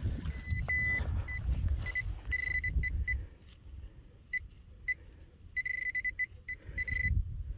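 Hand-held orange pinpointer beeping at one fixed high pitch as it is probed through loose soil. The beeps come in irregular short bursts, then run into nearly unbroken tones near the end, signalling metal in the clod of earth.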